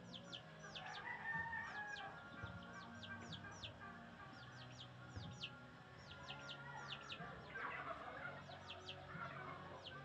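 Birds chirping: many short, high, falling chirps, mostly in quick twos and threes, with fainter lower clucking sounds.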